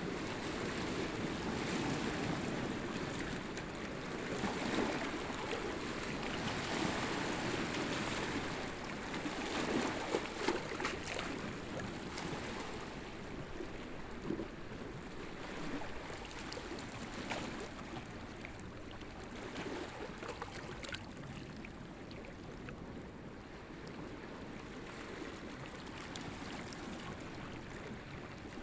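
Waves washing against the rocks of a rocky shore, a continuous wash that swells and eases, louder in roughly the first twelve seconds, with scattered short clicks and splashes of water among the stones.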